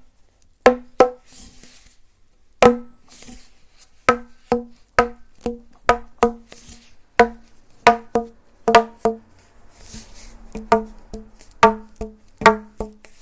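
ASMR tapping on a hollow, resonant object: sharp taps that each ring briefly at the same pitch, coming irregularly, in runs of two or three a second, with short pauses. Faint brushing or rubbing sounds lie between some taps.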